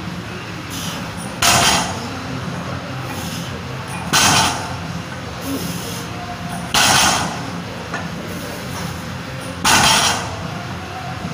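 A deadlift barbell loaded with 190 kg of Rogue bumper plates touching down on a rubber mat between reps. It happens four times, evenly spaced under three seconds apart, and each touchdown is a short clatter of the plates on the bar.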